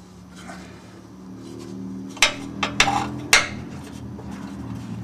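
Sharp metal clinks of a box-end wrench being worked on the ride height adjuster's bolt at the lower control arm, three of them between about two and three and a half seconds in, over a steady low hum.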